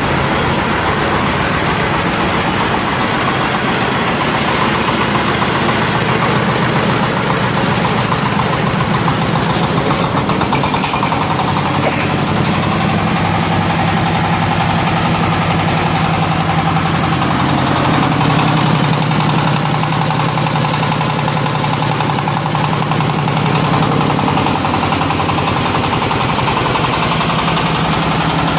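Engine idling steadily, its pitch shifting slightly a couple of times.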